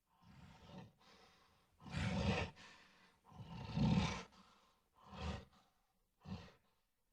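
Gorilla roaring in a string of about six breathy, rough bursts that rise and fall in loudness, the two loudest near the middle and the last one short.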